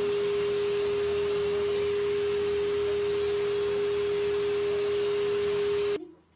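Hair dryer running steadily, a constant whine over the rush of air, cutting off suddenly near the end.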